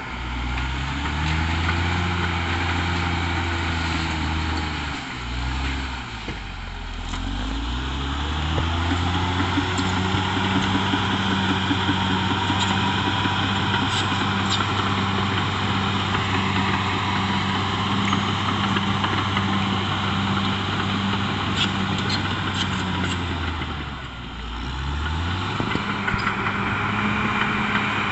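Caterpillar D6R XL bulldozer's diesel engine running steadily. Its note sags twice, about five seconds in and again near the end, then climbs back each time.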